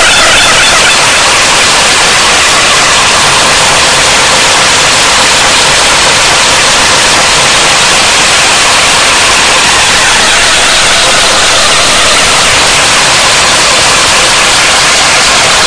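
Loud, steady hiss of static-like white noise, strongest in the upper range, with no breaks or changes.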